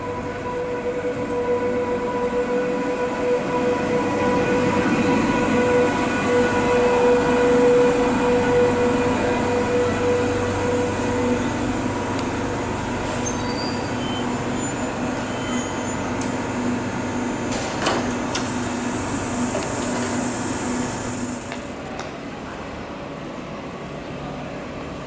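SBB ICN tilting electric intercity train pulling into the station and slowing alongside the platform, its electric drive whining with steady tones over the running rumble; the whine fades out about halfway through. Near the end a sharp click is followed by a hiss lasting a couple of seconds.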